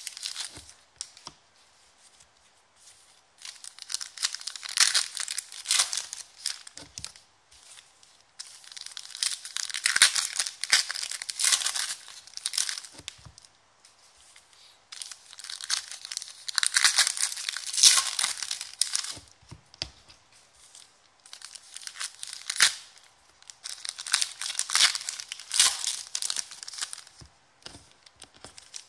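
Foil trading-card pack wrappers being torn open and crinkled by hand, in four bouts of a few seconds each with short pauses between.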